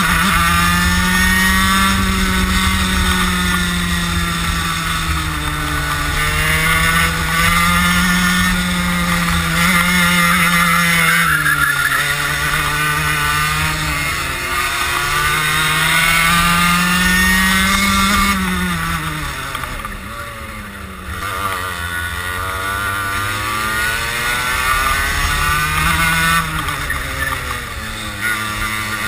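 Racing kart engine heard onboard at full throttle, its pitch climbing steadily along each straight and dropping as the driver lifts for corners, several times over, with a longer lift and lower revs about two-thirds of the way through.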